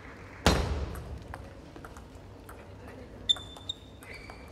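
A loud thump about half a second in, then faint scattered ticks and, from about three seconds in, a few short high-pitched pings of a table tennis ball bouncing.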